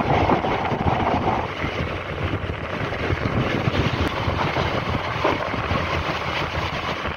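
MEMU electric train running at speed, heard at its open doorway: a steady rush of wind over the microphone mixed with the train's running noise.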